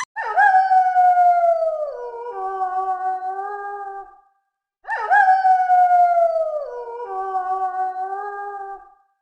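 A canine howl that slides down in pitch and then drops to a lower held note, played twice in identical form, each time for about four seconds.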